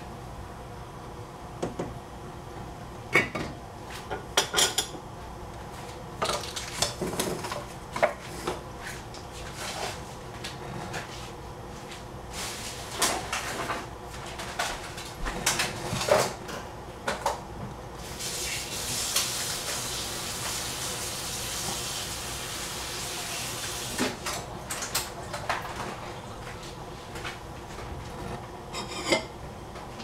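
Metal pots and utensils clinking and knocking in scattered clicks, with a steady hiss for about six seconds past the middle.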